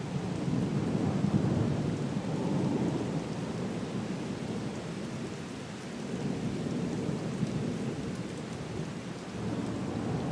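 Thunderstorm: steady rain with low thunder rumbling, swelling and easing in slow waves.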